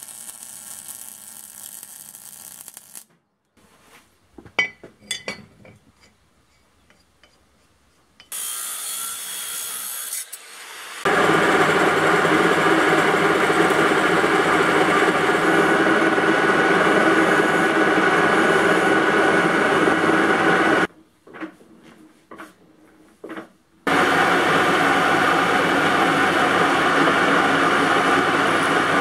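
Metal lathe running with a steady whine, turning a metal part and then drilling the centre of a V-groove pulley held in the chuck, in two long loud stretches broken by a few seconds of clicks. Near the start there is a short, quieter stretch of MIG welding crackle.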